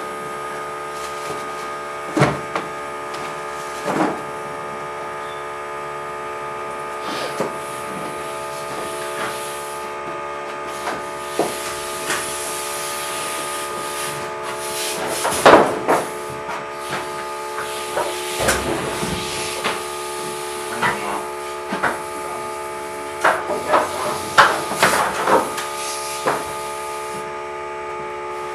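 Air compressor running steadily, with scattered sharp knocks and clatters of work on a wooden frame, the loudest about halfway through and a quick cluster of them near the end.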